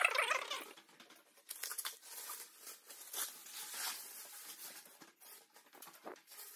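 Masking tape and plastic protective film being peeled off window frames and crumpled, stripped while the spray-painted walls are still wet. The result is irregular tearing and crinkling, loudest in the first half-second, then in scattered short bursts.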